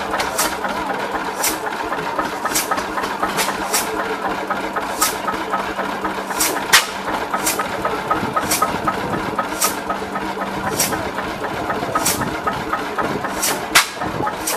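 Old stationary diesel engine with a large flywheel running slowly, its exhaust giving a sharp pop about once a second, a little unevenly, over a steady hum.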